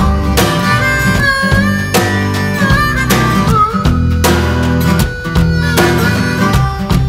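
Background country music in an instrumental passage: a bending lead melody over guitar and a steady beat.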